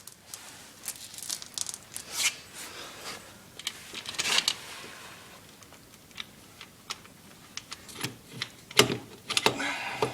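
Metal sprocket bolts clinking and rattling as they are handled and worked into the sprocket hub, with scattered sharp clicks and some rustling, and a louder clatter near the end.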